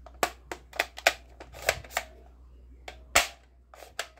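Sharp plastic clicks and clacks from a blue toy rifle being handled and worked in the hands: a quick run of clicks, then a few spaced ones, the loudest about three seconds in.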